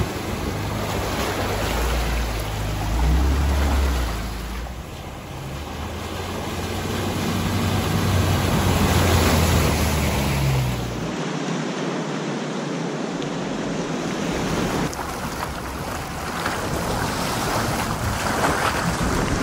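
Jeep Cherokee XJ wading a shallow creek, its engine running under the splash of water around the tyres. About eleven seconds in, a cut to a Jeep Wrangler JK Rubicon pushing through deeper, faster water, with a steady rush of water against the vehicle.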